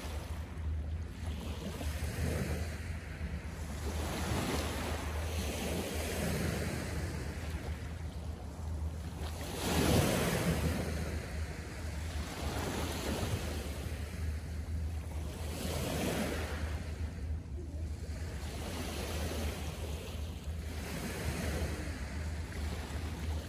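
Small Lake Michigan waves washing onto the shore, each surge swelling and fading every two to three seconds, the biggest about ten seconds in, over a steady low rumble.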